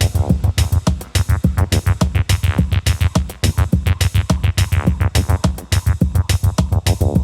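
Electronic runway music: a fast drum-machine beat with a heavy bass line and short synth sweeps.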